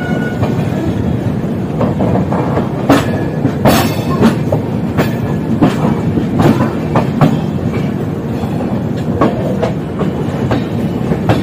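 Express-train wheels running over rail joints and points: irregular sharp clicks and knocks over the steady rumble of the moving coach, heard from an open doorway.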